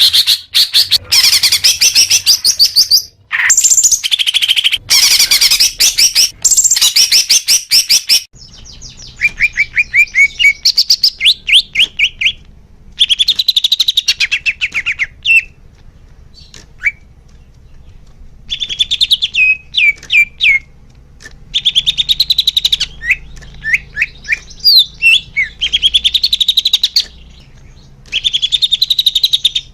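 Cucak hijau (green leafbird) singing. It starts with a long, loud burst of rapid chattering trills, then goes on in phrases of fast repeated notes a few seconds long, with short pauses between them.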